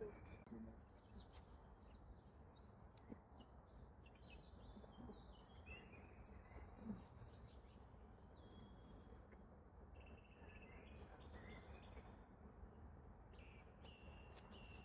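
Faint birdsong: small birds chirping and warbling in quick, varied notes over a low background hiss.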